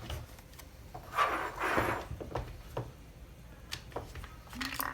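Scattered small clicks and knocks, with a brief rush of noise about a second in.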